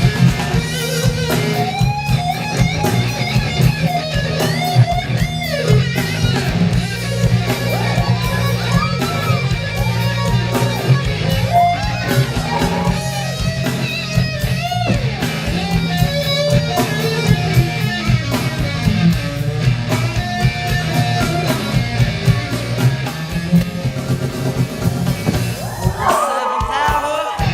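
Rock music with an electric guitar playing a lead line with bent notes over steady bass and drums. The bass drops out briefly near the end.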